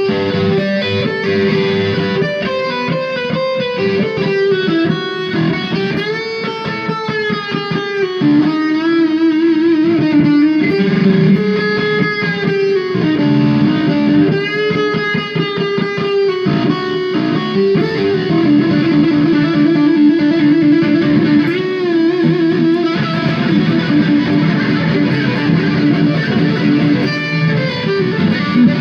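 Solo electric guitar played through an amplifier, improvised lead lines with string bends and warbling vibrato and trills.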